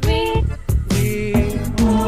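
Background music: held melody notes over a bass line, with percussive hits.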